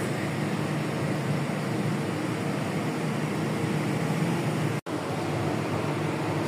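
Steady drone of a fishing vessel's below-deck machinery with an even rushing hiss, broken by a brief dropout about five seconds in.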